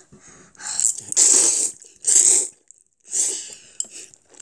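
Four loud, breathy mouth sounds from a person, each about half a second long, made over a clump of instant jjajang noodles held up on chopsticks.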